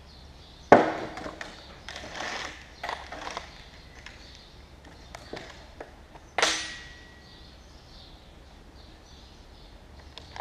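A chainsaw being handled and set down on a workbench, clunking and rattling. A sharp knock comes about a second in and another about six and a half seconds in, the second with a short metallic ring, with lighter clicks and rustling between.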